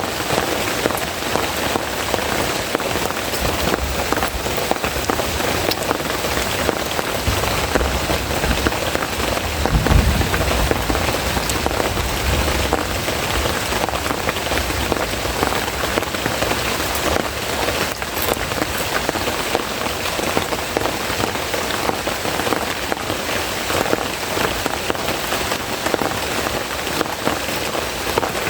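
Heavy rain falling steadily, a dense patter of drops on surfaces. A low rumble swells and fades around ten seconds in.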